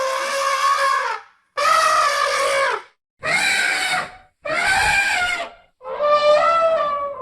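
Elephant trumpeting: a run of loud, brassy calls, one already under way at the start and four more after it, each lasting about a second with short silent gaps between. The pitch holds fairly level through each call.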